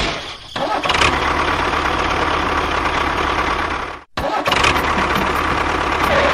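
Motor of a DIY mini construction vehicle running steadily. It drops out briefly near the start and cuts off abruptly about four seconds in, then resumes.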